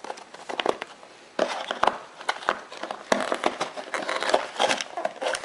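Cardboard box and packaging being handled and rummaged through: a few scattered knocks and clicks, then denser crackling and rustling from about a second and a half in.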